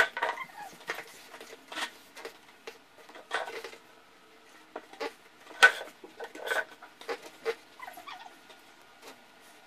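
A toddler's short, squeaky vocal sounds, mixed with scattered sharp knocks and taps on a wooden floor. The loudest knock comes a little past the middle.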